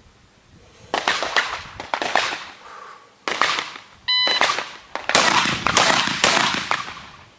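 A shot-timer beep, then three 12-gauge semi-automatic shotgun blasts fired in quick succession within about two seconds, each with a ringing echo. Other gunshots sound earlier, before the beep.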